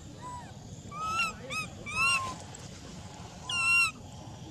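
Baby macaque crying: a run of high, arching, whistle-like calls about a second in, then one longer call near the end. These are the begging cries of a hungry infant.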